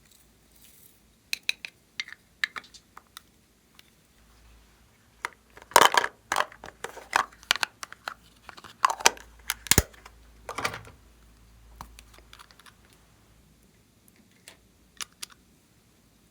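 Slime being worked by hand, making sticky clicks and pops. They come sparsely at first, crowd together from about five to eleven seconds in, then thin out again.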